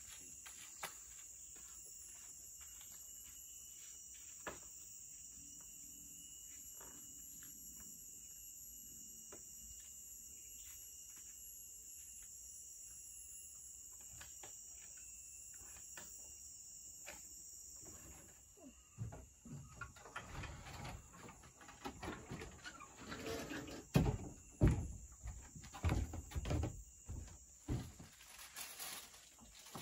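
Steady high-pitched insect chorus of the tropical forest, with a few faint clicks. In the last third comes a run of irregular thumps and knocks on wood as someone moves about in the wooden stilt hut.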